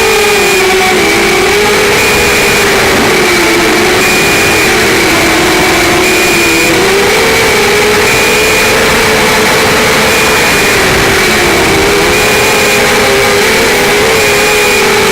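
QAV200 racing quadcopter's brushless motors and propellers whining in flight, the pitch drifting up and down with the throttle over a steady hiss.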